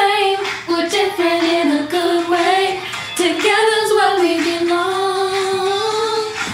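A woman's voice singing alone, with no instruments, in long held notes that slide up and down in pitch.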